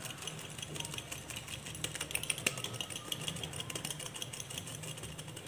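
Light, quick clicking and rattling of two small steel bowls cupped together and shaken by hand, the sticky poha-and-jaggery mixture knocking about inside as it is rounded into a laddu.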